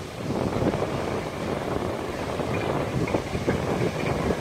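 Loaded container barge passing close along the canal bank: a dense, uneven rumble and churning of its bow wave surging against the shore. A few faint squeaks come in the second half.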